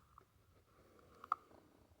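Quiet handling of a chainsaw's clutch during removal, with one short sharp click about a second and a half in.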